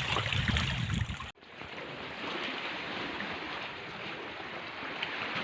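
Wind and sea noise on a small boat: a steady hiss, heavier and rumbling at first, dropping suddenly about a second in to a quieter, even hiss.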